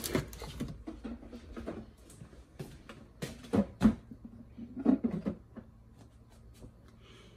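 Small plastic yogurt-drink bottles clattering and knocking as they are lifted from a cardboard box and set into a refrigerator door shelf: a scatter of light knocks, loudest about halfway through.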